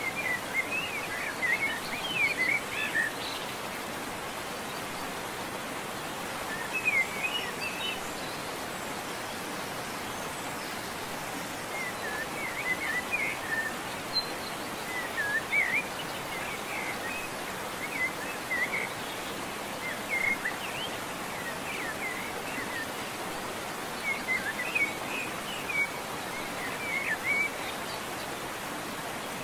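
Small birds chirping in short bursts every few seconds over a steady outdoor hiss.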